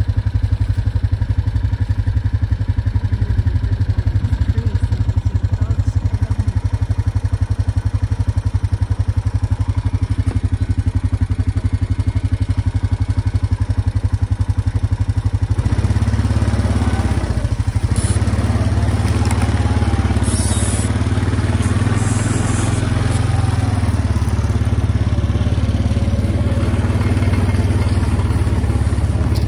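Small engine of a ride-on vehicle running steadily at low speed with an even pulse; about halfway through it grows louder and fuller.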